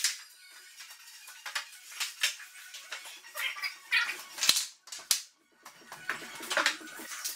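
Scattered knocks, clicks and clatter of a long wooden tongue-and-groove shiplap board being picked up and handled, with two sharper knocks about halfway through.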